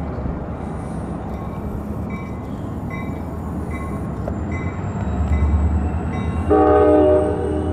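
Diesel locomotive's multi-chime air horn sounding a blast about six and a half seconds in, over the steady low rumble of the locomotive's diesel engine. A horn blast cuts off right at the start, and faint, evenly spaced ticks come in between.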